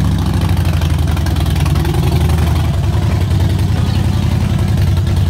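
Harley-Davidson air-cooled V-twin motorcycle engine idling steadily.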